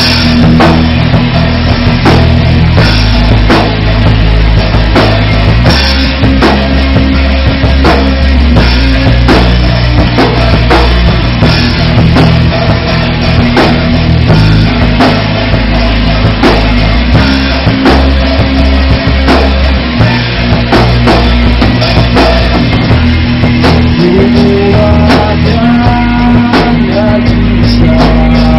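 Rock band playing live and loud in a small room: electric guitars and a drum kit.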